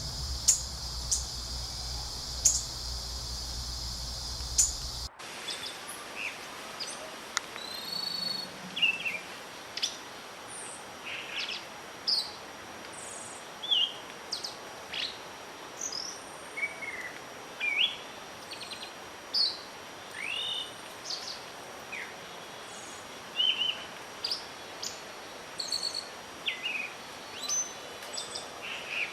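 A steady low rumble with a high steady hiss and a few clicks, cut off abruptly about five seconds in. Then comes a chorus of wild birds singing: many short chirps and whistled notes, rising and falling, over a soft background hiss.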